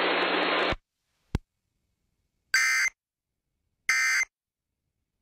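Broadcast hiss cuts off under a second in, followed by a single click. Then come two short, identical warbling data bursts of the Emergency Alert System end-of-message code, about 1.3 seconds apart, with a third starting at the very end. They mark the close of the alert.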